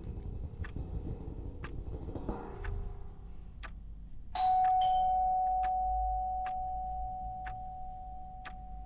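Clock ticking about once a second; about four seconds in, a two-note doorbell chime sounds, the higher note first, and rings on, slowly dying away.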